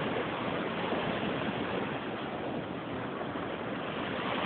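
Steady rushing of ocean surf, swelling and easing a little, with no thunder clap.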